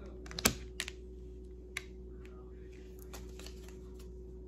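Scattered light clicks and taps, with one sharper knock about half a second in, over a steady low electrical hum.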